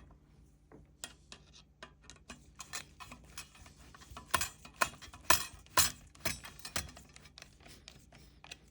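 Irregular small metallic clicks and clinks as a screw with washers is tightened down through the metal frame bars of a raised planter, the clicks louder and closer together around the middle.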